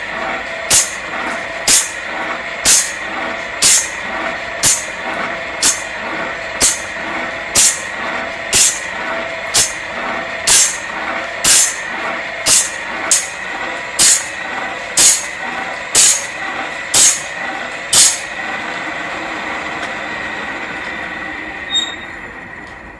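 Automatic saw-blade sharpening machine running, its grinding wheel hissing against the blade in a steady rhythm of about one stroke a second, with lighter strokes in between, over the hum of its electric motor. The grinding strokes stop about 18 seconds in while the motor keeps running; a click comes about 22 seconds in, and the sound dies away at the very end.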